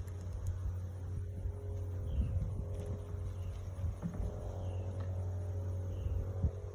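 A steady low hum, with a few faint knocks of handling.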